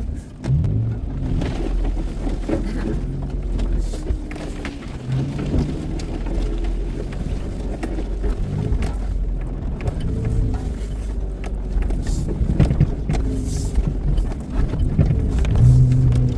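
Off-road truck engine revving under load, its pitch rising and falling over and over in surges every two to three seconds, as the truck works its way up a rocky climb.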